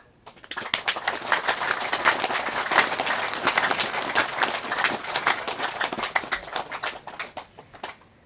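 Crowd clapping: many irregular sharp claps that build quickly, hold for several seconds and thin out near the end.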